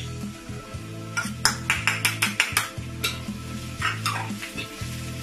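Metal ladle knocking and scraping against a wok in quick strokes, as crushed garlic and ginger are stirred into hot oil. A run of about eight sharp clicks comes in the middle, and a few more follow.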